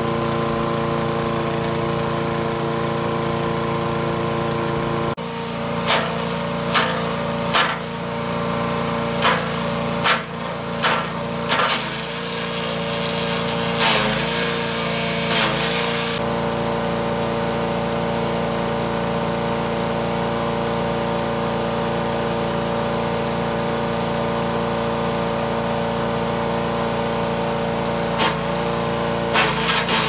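SuperHandy mini wood chipper's 7 HP 212cc gas engine running steadily, with branches being chipped in a run of sharp cracks from about five seconds in for some ten seconds, and again near the end.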